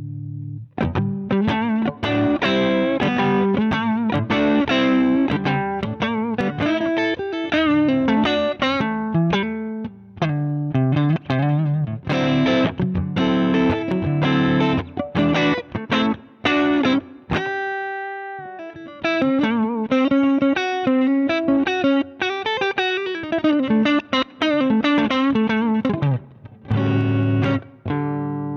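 Electric guitar played through a Zander Circuitry Surplus overdrive pedal: crunchy overdriven riffs of quick picked notes and chords. A single clean-ringing note breaks the run about two-thirds of the way in, and a chord is left to ring near the end.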